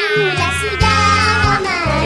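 Background music: a high, wavering melody line held over steady low bass notes.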